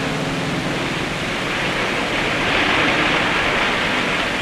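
A steady rushing noise that grows brighter and a little louder about two seconds in.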